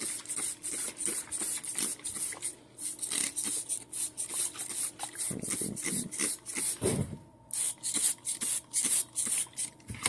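Hand trigger spray bottle squirting cleaner onto a refrigeration condenser coil: short hissing squirts in quick succession, about two to three a second, over a faint steady hum.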